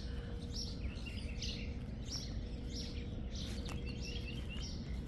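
A songbird calling over and over, short high chirps repeating about once or twice a second, over a low, even outdoor rumble and a faint steady hum.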